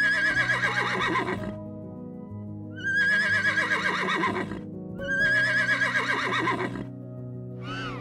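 A zebra calling three times, each call a high rising squeal that breaks into a run of quick, falling yelps, over steady background music.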